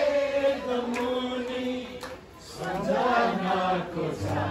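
Voices singing long held notes in a chant-like way, with a short break about two seconds in.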